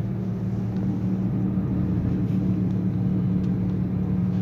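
Nissan Sunny coasting in neutral with a steady low hum from the wheels: the drone of a worn wheel bearing, which keeps humming with the engine out of gear. A faint higher tone joins the hum about a second in.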